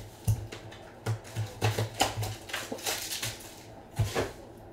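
Hands handling foil-wrapped trading-card packs and boxes on a tabletop: an irregular run of knocks and crinkly rustles.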